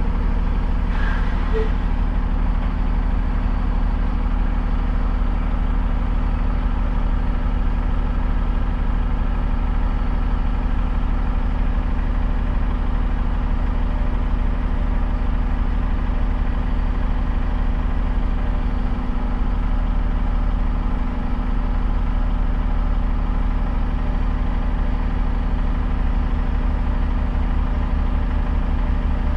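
Car engine idling steadily while the car stands still, a low, even hum.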